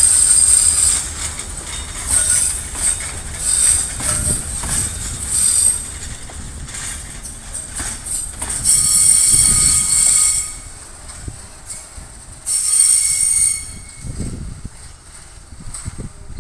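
Ballast hopper wagons squealing in repeated high-pitched bursts as they are shunted at low speed, over a low, steady rumble from the diesel locomotive.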